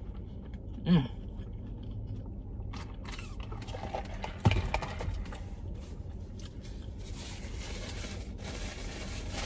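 Fast-food eating sounds: a sip from a soda cup through a straw, a short voiced 'mm' about a second in, and a cardboard food box handled with a sharp knock about four and a half seconds in. Chewing and paper packaging rustle sit over a steady low hum.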